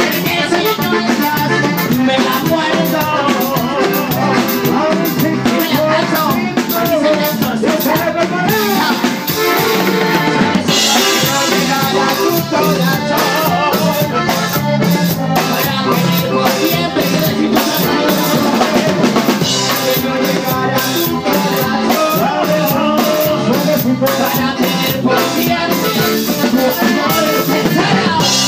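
Live band music with a steady drum beat.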